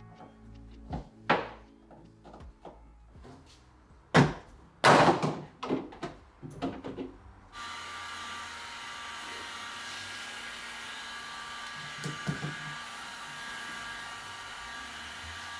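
Several separate knocks and thuds, the loudest about four to five seconds in. Then, about seven and a half seconds in, a steady even hiss with a faint constant hum starts suddenly and holds at one level.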